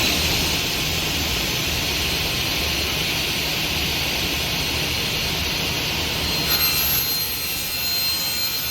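Felder Kappa 450 sliding table saw running at full speed, a steady loud whir of the spinning blade just after spin-up. About six and a half seconds in, the sound changes, with thin high whining tones added.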